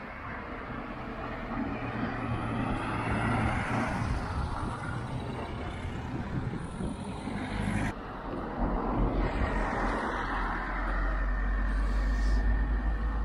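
Road traffic passing close by: engine and tyre noise rises and falls as cars and a van go past. From about eight seconds in, a deep, steady engine rumble from a heavier vehicle builds.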